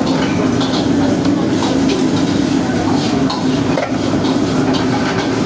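Steady rushing noise of gas wok burners on a restaurant wok range, with metal ladles clanking and scraping in woks as food is stir-fried, several quick clinks a second.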